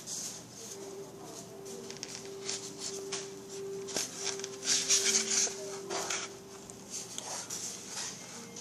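Irregular rustling and light clicking from hand-sewing hair wefts onto a wig cap: thread and needle pulled through, hair and cap being handled.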